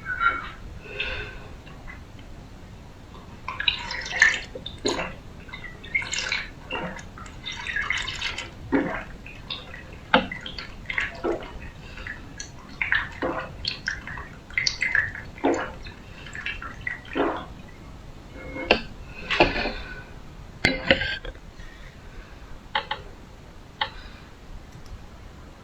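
Close-miked drinking: an irregular run of short wet sips, gulps and swallows of liquid, a few each second with brief pauses between.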